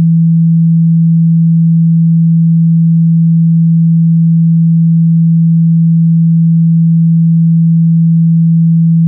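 A single low-pitched pure sine tone held perfectly steady and loud without a break. It is a speaker-cleaning tone, played through a phone's speaker to vibrate water and dust out of it.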